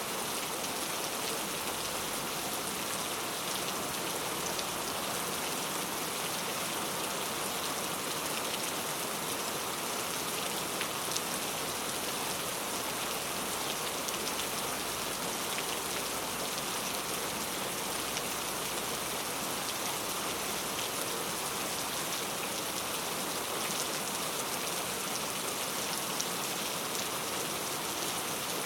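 Steady rain falling on a surface, an even hiss with occasional sharper drop ticks.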